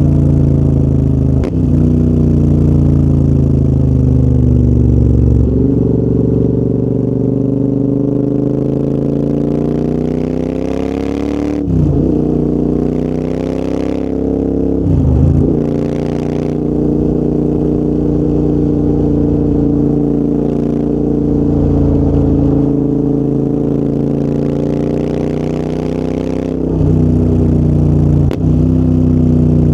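Royal Enfield Interceptor 650's parallel-twin engine running through a full TEC aftermarket exhaust under riding, its pitch climbing under throttle and sinking as it eases off. The note breaks briefly four times at gear changes, about a second and a half in, around twelve and fifteen seconds in, and near the end, each followed by a rising pull.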